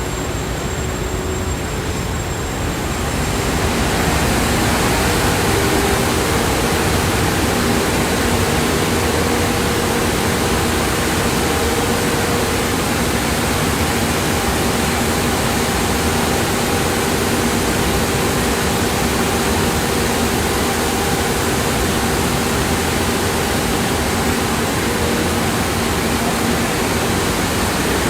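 Loud, steady roar of industrial machinery and air handling on a factory floor, with a few steady hums running through it; it grows louder about three seconds in.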